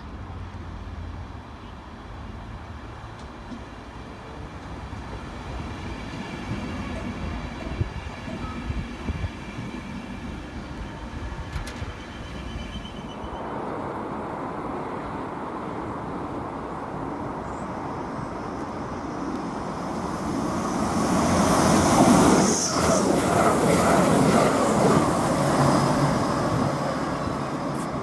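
Passenger trains on a main line. First a train approaches with a faint steady whine. Then a train passes at speed, and the rushing rumble of wheels on rail builds to its loudest about 22 seconds in and then eases off.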